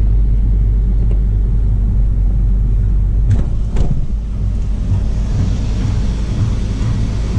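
Motor vehicle running with a steady low engine rumble. There are two short knocks a little over three seconds in, and a hiss builds in the second half.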